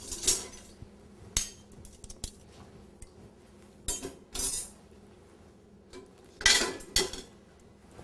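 Dishes, pots and silverware clinking and clattering in a dishwasher's racks as they are handled and loaded, in a handful of short, separate knocks; the loudest clatter comes about six and a half seconds in.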